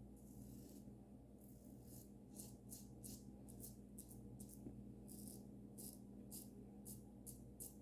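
Safety razor with a Dorco blade scraping through lathered stubble: faint, short rasping strokes, about two or three a second, with brief pauses between runs.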